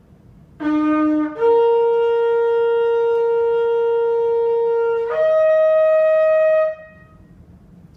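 Shofar blown in one call that steps up in pitch twice: a short low note, a long steady note held for several seconds, then a higher note that cuts off at about seven seconds.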